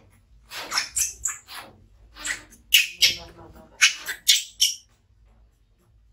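Infant macaque giving a rapid run of short, shrill crying screeches, several a second, while it is being bathed in distress.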